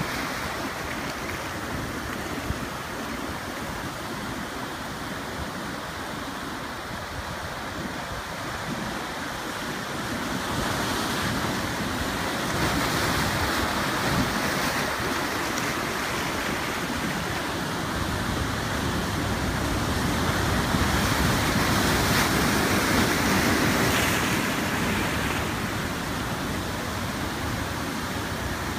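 Ocean surf breaking and washing over a rocky shoreline with tide pools: a continuous rush of water that swells louder twice, around ten and twenty seconds in, as bigger waves come in.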